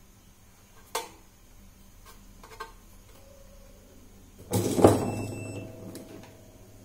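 Hands handling tools and wires on a workbench: a sharp click about a second in, a lighter tap a little later, then a louder clatter with a short ring as something is picked up and set down.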